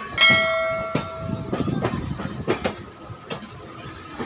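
Train horn sounds once right at the start, a loud pitched tone held for about a second. The rest is a train's wheels clacking in irregular knocks as it runs over rail joints and points in a yard.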